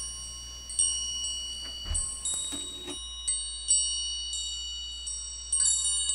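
Metal wind chime tubes struck at irregular intervals, about eight strikes. Each strike rings on in several clear high tones that overlap and fade slowly.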